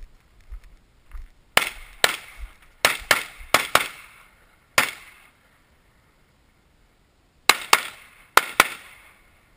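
Limited-division competition pistol firing a stage string. About eight shots come in quick succession, then after a pause of a couple of seconds four more follow in two fast pairs. Each crack has a short echo.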